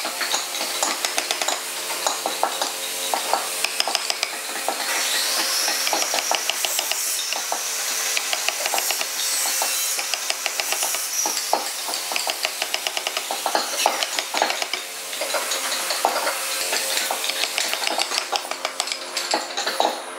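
Wooden mallet striking a wood-carving chisel into a hardwood panel in quick, irregular light taps, with a stretch of steadier scraping noise in the middle.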